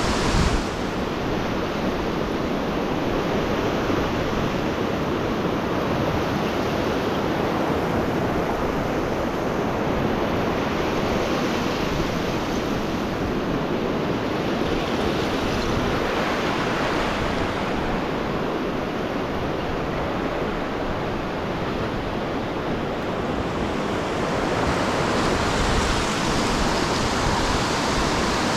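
Steady rush of Lake Michigan surf mixed with snowstorm wind, swelling and easing every several seconds.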